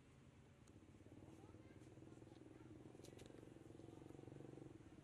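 Near silence with a faint, steady low hum that swells slightly after about a second, and a few faint clicks around the middle.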